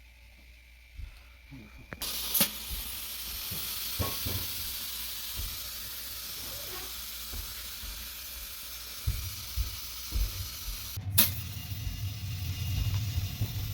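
Compressed air hissing steadily into a tire through its valve stem as it is inflated. The hiss starts suddenly about two seconds in and cuts off about eleven seconds in, followed by a low hum.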